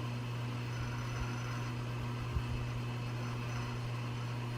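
Steady low hum throughout, with a faint soft bump about two and a half seconds in.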